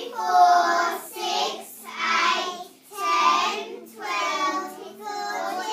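A class of young children chanting numbers together in a sing-song unison, counting by twos, about one number each second.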